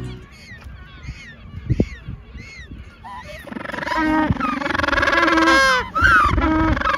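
Magellanic penguins calling at their burrow: a few faint, short, high calls first, then from about halfway loud, drawn-out harsh calls, with a short break near the end. Downy juveniles are pressing their bills at an adult's open bill, begging for food.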